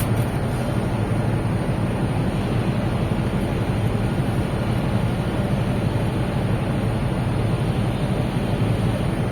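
Steady low engine rumble with a constant rushing noise of wind on the microphone.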